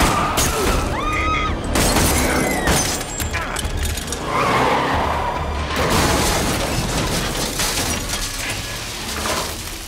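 Film action sound: a handgun shot at a car, with glass shattering and breaking, over a tense film score.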